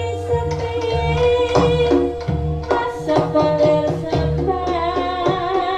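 Javanese jaranan gamelan ensemble playing live: repeated low drum strokes under held, wavering melodic tones, with some singing.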